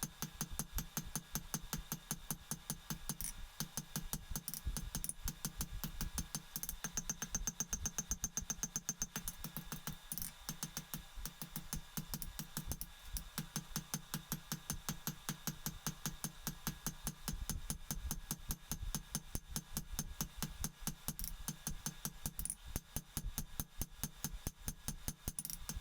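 Hammer forging a piece of hot steel on an anvil: a long run of rapid, even metal-on-metal blows, several a second.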